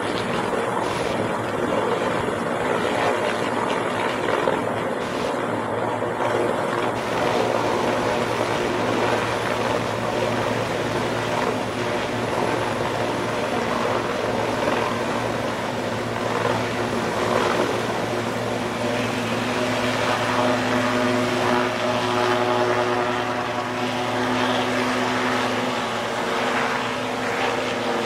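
Helicopter taking off from a ship's helideck and flying away: steady, loud rotor and turbine noise, with a few humming tones coming through in the last several seconds.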